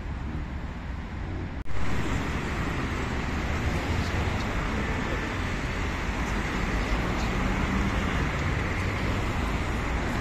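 Street traffic: cars running through a city intersection, a steady rumble of engines and tyres. The sound drops out for an instant a little under two seconds in and comes back slightly louder.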